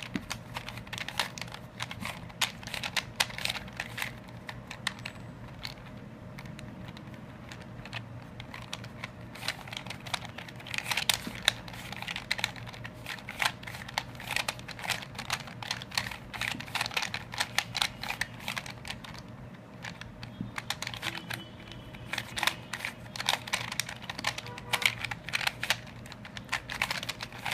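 Plastic Rubik's cube being turned by hand: quick runs of clicks and clacks as its layers are twisted, with short pauses between runs.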